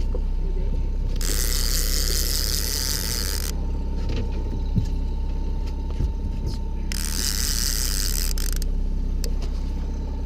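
Fishing reel drag screaming twice as a hooked Chinook salmon strips line: a first run of about two seconds starting about a second in, and a shorter one near seven seconds in, over the steady low rumble of the boat.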